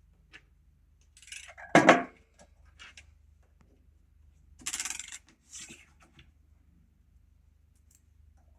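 Small metal hardware clinking and scraping: a bolt, washer and nut being handled while fitting a bracket to a desk cross beam, with one sharp knock about two seconds in and a rattling scrape near the middle.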